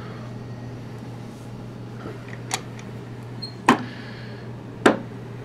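Handling noise: three short sharp knocks about a second apart, the last two loudest, over a steady low hum.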